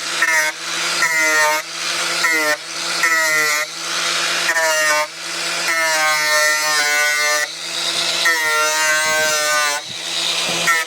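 Angle grinder working against a car's painted metal body panel, its motor whine repeatedly dipping under load and rising again as the disc is eased off, over a hiss of grinding.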